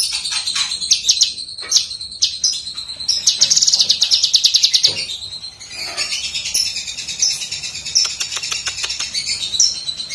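A caged cucak kinoi leafbird singing loudly: a varied, chattering song of high notes with fast rattling trills.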